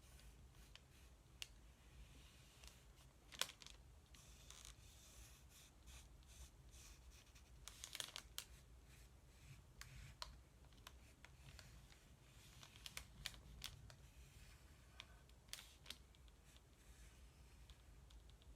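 Pencil sketching on paper: faint, irregular scratchy strokes and light ticks over a low steady room hum.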